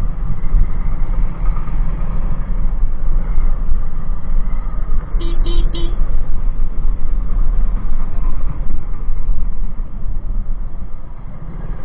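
Motorcycle riding along a street: a steady engine rumble with heavy wind noise on the handlebar-mounted microphone. About five seconds in, a horn gives three quick beeps.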